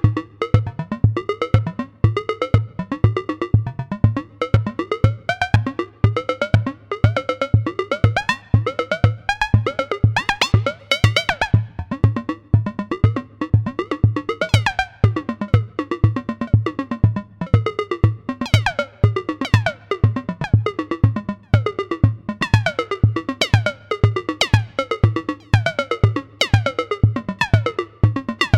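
Modular synthesizer patch played on the ST Modular Boba Fat module: a steady low kick-like pulse about twice a second under a busy sequence of short synth notes that glide up and down in pitch.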